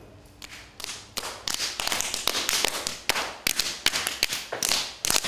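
Several pairs of hands slapping and kneading a long mass of wet porcelain clay on a wooden bench. The sharp, uneven slaps come about three or four a second, starting about half a second in.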